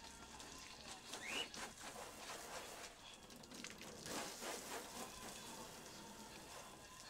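A wash mitt scrubbing over wet, soapy car paint in two passes, about a second in and about four seconds in, with a short rising squeak during the first pass.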